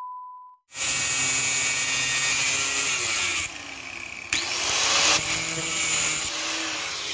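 A steady test-pattern beep fades out, then an electric angle grinder with a cut-off disc starts and cuts through a thin steel rod, its whine shifting with the load. It eases off for about a second around the middle, then bites into the rod again.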